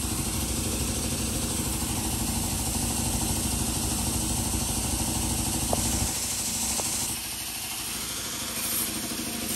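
Air compressor running with a steady low throb, which drops away about six seconds in, over a steady hiss that changes about seven seconds in.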